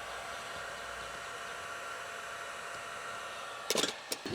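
A steady, even hiss with a faint hum. Near the end come two sharp clicks or knocks, about half a second apart.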